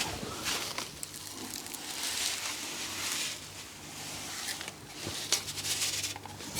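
Medicated broiler starter feed being scooped and poured into plastic chick feeders: a dry, granular rustling in several separate pours, with a few light clicks near the end.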